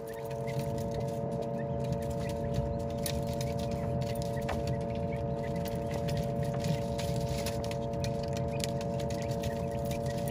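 Quail chicks pecking at crumbled feed in a metal tray, making light, irregular ticks, over a steady hum of several fixed tones.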